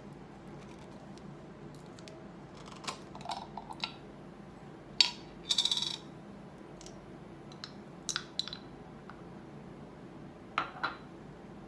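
A small glass jar with a metal screw lid handled on a tabletop: scattered clicks and clinks, with a short grating rasp about halfway through as the lid comes off. Near the end, a spoon clinks twice against the glass.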